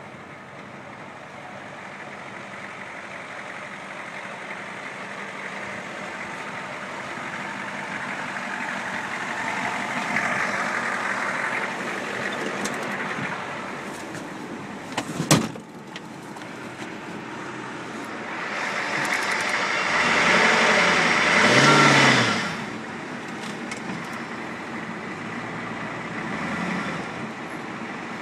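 Ford 7.3L Powerstroke turbo-diesel V8 running steadily. A single sharp knock comes about fifteen seconds in, and a loud swell builds for about four seconds near the end, then drops away.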